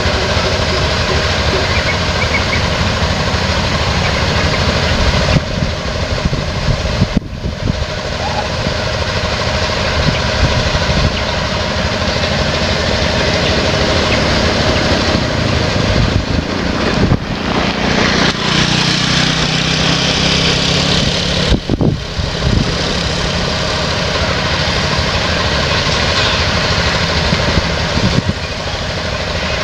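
Steady running of motor vehicle engines, with a stronger engine sound for a few seconds past the middle.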